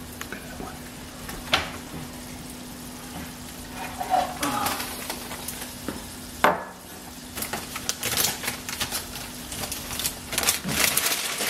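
Kitchen handling clatter with two sharp knocks, then dry penne pasta rattling as it is poured from its bag into a ceramic mug for the last few seconds.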